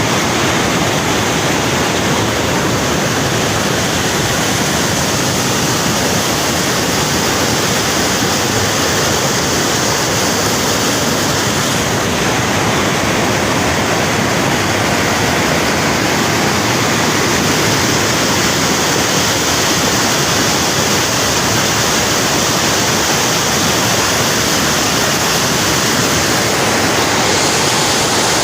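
Steady, loud rushing of water in spate, an even noise with no pauses.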